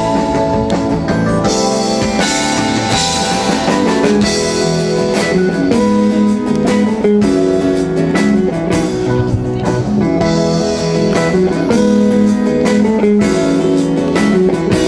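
Live band playing an instrumental break with no singing: guitar over drum kit.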